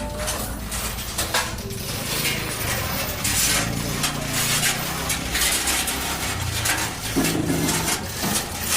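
Metal parts clinking and clanking irregularly over a steady low engine-like hum, as the steel grinder machine is handled and hoisted with a chain pulley.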